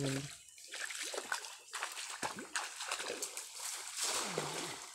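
Water splashing and sloshing as someone wades fast through shallow pond water, a run of irregular splashes that is heaviest near the end.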